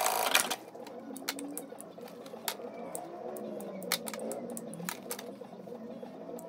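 Industrial sewing machine running in a short loud burst at the start, then stopping. After that come scattered small sharp clicks as the threads are snipped and the work is handled.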